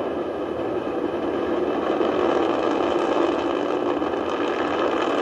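Steady, unbroken rocket engine noise from a Delta IV Heavy's three RS-68 engines firing at full thrust during ascent.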